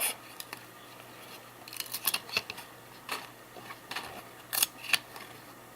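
Trading cards being handled and flipped through by hand: scattered soft snaps and rustles of card stock, a handful of sharper clicks in the second half.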